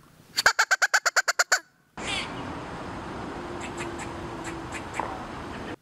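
Primos Squirrel Buster squirrel call sounding a fast run of about ten short barks in just over a second, a "speed bark" imitating a squirrel's alarm bark. After that comes a steady outdoor background hiss with a few faint ticks.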